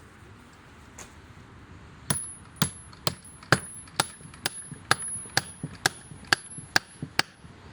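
A hammer striking with a high metallic ring: a dozen blows at about two a second, starting about two seconds in.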